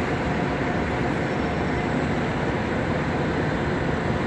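Steady city traffic noise, an even rush with no distinct events standing out.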